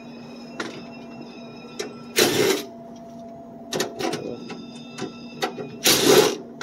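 Clicks and knocks from work on a vending machine, with two short harsh noise bursts about four seconds apart, over a steady electrical hum.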